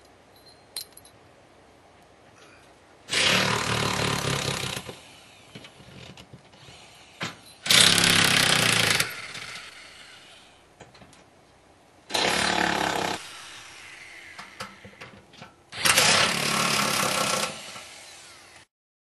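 Handheld corded power tool running in four bursts of about one and a half seconds each, with a few seconds' pause between them.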